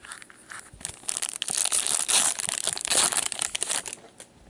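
Plastic wrapper of an Upper Deck Tim Hortons hockey card pack crinkling and tearing as gloved hands rip it open, a dense crackle from about a second in until near the end.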